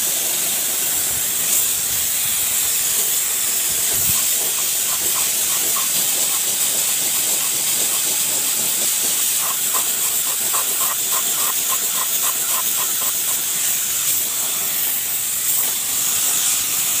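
Compressed-air gravity-feed spray gun hissing steadily as it sprays paint onto a motorcycle wheel rim.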